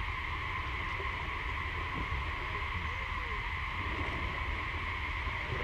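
Steady outdoor drone held on two constant high pitches, like a chorus of calling insects, over a low rumble. A faint short rising-and-falling call about three seconds in.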